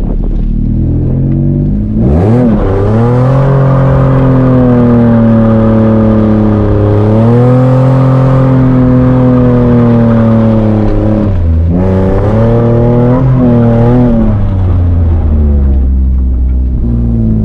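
Nissan 350Z's 3.5-litre V6 revving up sharply about two seconds in and held at high revs with a wavering pitch while drifting, dipping briefly about two-thirds of the way through, rising again, then falling back to a low steady note near the end.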